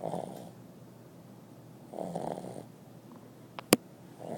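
Dog snoring loudly in its sleep, one snore about every two seconds, three in all. A sharp click, the loudest sound, comes shortly before the third snore.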